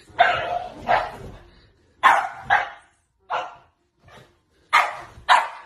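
French bulldog barking: about eight short barks with brief gaps between them, several coming in quick pairs.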